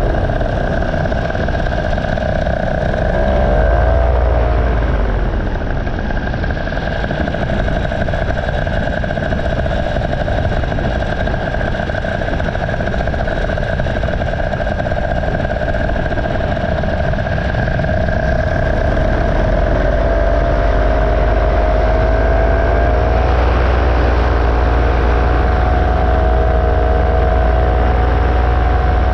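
Paramotor engine and propeller running steadily. The engine note dips briefly about four seconds in, sits fainter under a rush of noise through the middle, then comes back stronger and a little higher after about twenty-two seconds, as the throttle is eased and opened again.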